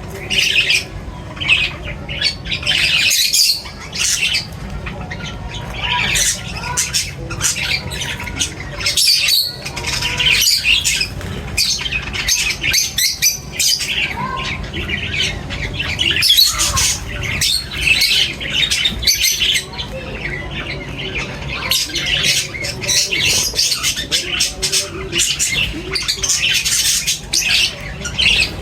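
Many birds calling at once in a continuous chatter of short, overlapping chirps and harsh calls, over a faint steady low hum.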